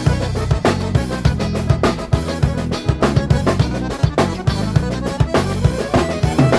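Instrumental break of a gaúcho dance song, with a drum kit playing a fast, steady beat of kick drum, snare and rimshots under the band.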